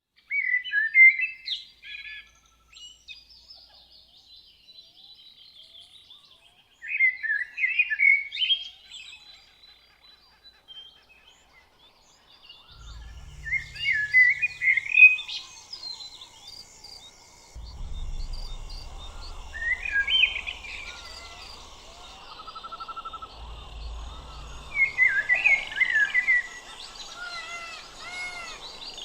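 Common blackbird singing: about five short warbling phrases, each a couple of seconds long, separated by pauses of several seconds. From about halfway, fainter calls of other birds and a low rumble that comes and goes sit behind the song.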